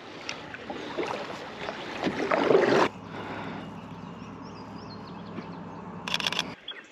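Kayak paddle working the water: splashing and knocks against the hull that build up and stop suddenly about three seconds in, followed by a steady wash of moving water. Near the end comes a quick run of sharp clicks, a camera shutter firing in a burst.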